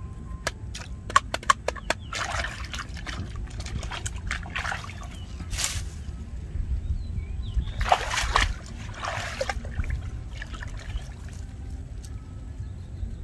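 Hands digging and scooping wet mud in shallow water, with repeated sloshes and splashes; the biggest splash comes about eight seconds in. A few sharp clicks come in the first two seconds.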